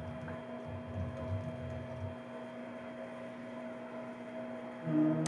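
Steady electrical mains hum in the recording: two constant tones, with a low uneven rumble under them for the first two seconds.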